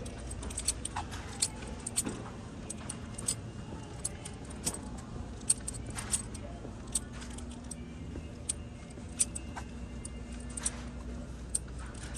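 Irregular light clinks and jingles like small metal items or keys jangling, many sharp ticks scattered throughout, over a steady low hum.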